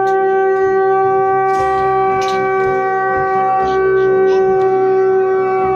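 Conch shell (shankh) blown in one long, steady, loud note, sounded as worship before a Ganesh idol.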